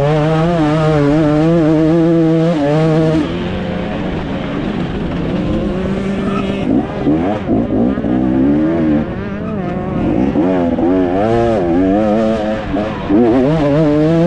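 A 2024 KTM 250 SX two-stroke single-cylinder motocross engine ridden hard, its pitch rising and falling with throttle and gear changes. It backs off about three seconds in and runs unevenly, then opens up again to a steady high rev near the end.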